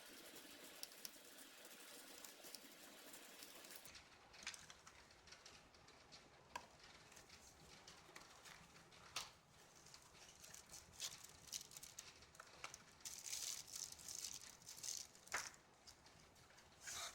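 Faint scattered clicks and light taps of small hardware being handled, with a short spell of soft rustling near the end.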